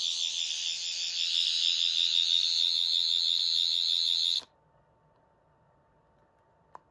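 Replica 10th Doctor sonic screwdriver (11th Hour version) sounding its high, wavering electronic buzz, which cuts off suddenly about four seconds in. A faint click follows near the end.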